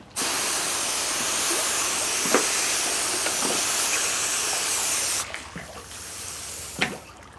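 A garden hose spraying water over a gutted flounder to rinse it clean: a steady hiss that cuts off about five seconds in, followed by a fainter wash of water and a few knocks.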